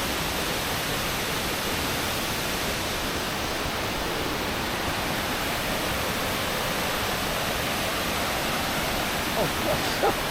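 Steady rushing roar of a large waterfall, heavy water pouring over a cliff edge, with no change in level.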